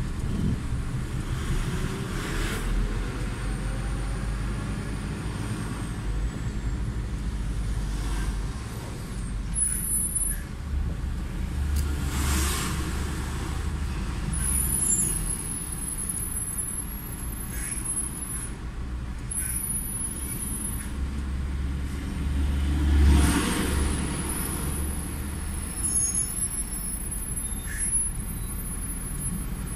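Road traffic: a steady low vehicle engine rumble, with cars and a lorry passing several times. The loudest pass comes about three-quarters of the way through.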